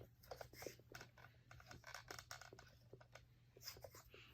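Faint, irregular small clicks and rustles of hands handling plastic toy parts and packaging, several to a second.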